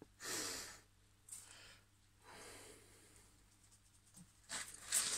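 Quiet breathy exhales close to the microphone, then near the end a few louder short scratching strokes of a pencil marking a steel ring.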